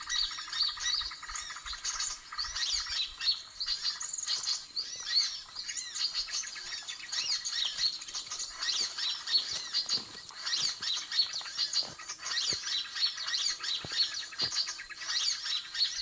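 Dense, overlapping chirping and twittering of many small birds, a "suara ribut" commotion call used as a lure to attract birds. A few short clicks are heard in the second half.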